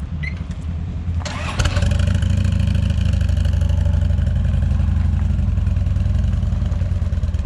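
Truck engine running, with a sudden jump in revs about a second and a half in, then running steadily and loud.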